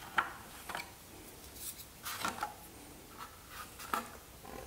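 Hands handling the black plastic water trough of a Tormek T-8 wet sharpener: a few light clicks and scrapes of plastic at irregular intervals.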